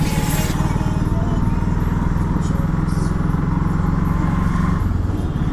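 Small engine of the vehicle being ridden running steadily through street traffic, its note changing about five seconds in.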